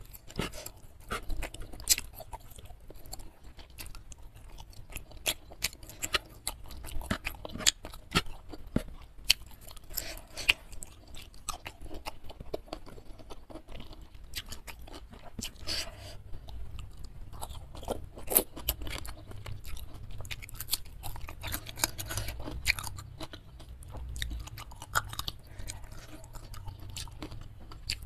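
Close-miked chewing and crunching of a mouthful of rice and side dishes, with many sharp, irregular mouth clicks.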